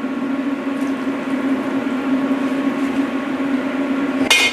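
Steady electric hum from the countertop cooktop under a stockpot of simmering curry, with one short sharp clink about four seconds in.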